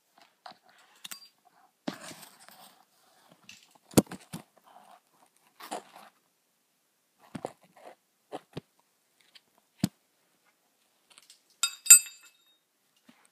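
Handling noise from a camera being picked up and moved around: scattered knocks, clicks and rustles, with a short ringing metallic clink near the end.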